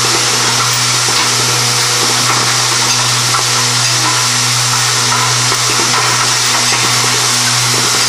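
Automated assembly cell with vibratory bowl feeders running: a steady low electric buzz under a constant hiss, with faint light clicks of moving tooling.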